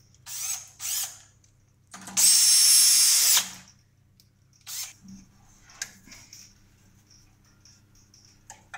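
A small electric motor whirs at a steady high pitch for about a second and a half, then cuts off sharply. A couple of short rustling noises come just before it and a few light clicks after.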